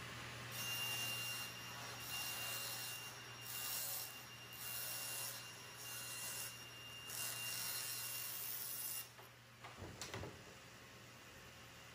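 Table saw cutting a sheet of quarter-inch plywood, the cut rising and falling in repeated surges as the sheet is pushed through. The cutting stops about nine seconds in, and a knock follows about a second later.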